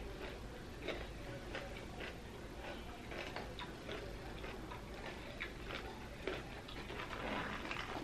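Close-miked wet chewing of crunchy pickled vegetables, a string of short crisp crunches and mouth clicks. Near the end comes a stretch of plastic packaging crinkling.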